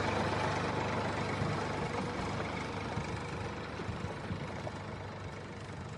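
A vehicle engine running steadily with a low hum, slowly fading out.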